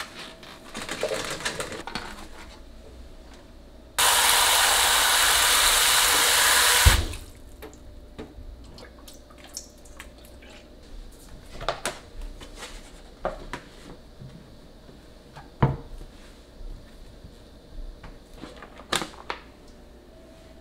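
Kitchen tap running hard for about three seconds, filling a plastic salad spinner bowl to wash greens, then cut off abruptly. Scattered light clicks and knocks of the plastic spinner being handled follow.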